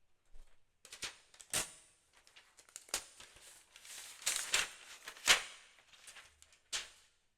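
A new MacBook being handled: a series of sharp clicks and taps on the laptop, with light rustling between them, the loudest tap about five seconds in.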